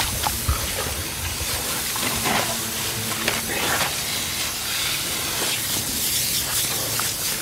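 A jet of water from a garden hose hisses steadily as it sprays over an elephant calf and the wet ground, with a few short knocks.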